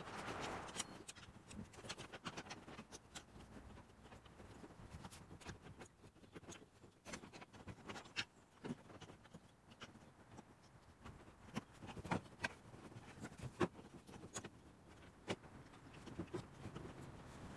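Faint, irregular clicks and taps of an aluminium-framed solar panel and copper wire being handled against a plastic rooftop air-conditioner shroud as the panel is wired down.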